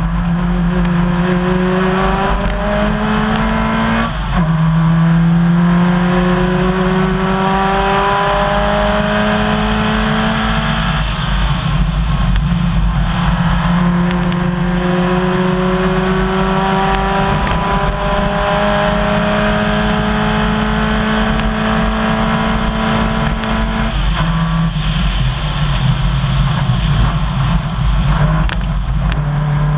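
Subaru rally car's engine at full throttle on a gravel stage, heard from inside the car. The revs climb in long sweeps and drop sharply at upshifts about 4 and 24 seconds in, over steady tyre and gravel noise.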